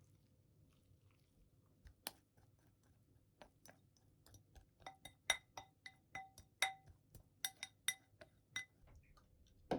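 A utensil clinking against a ceramic bowl while pasta is tossed with natto, with a sticky, squishy sound between strikes. The clinks start about two seconds in and come faster, about two or three a second, from the middle on, each with a short ring.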